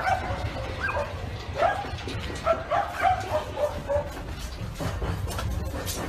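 A dog barking and yelping in short, repeated calls for the first four seconds or so, over a low rumble, with a few knocks near the end.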